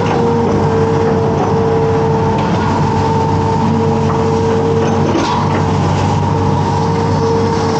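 Amphibious excavator's diesel engine running steadily under load, with a steady hydraulic whine over the engine rumble, as the bucket digs through flooded ground.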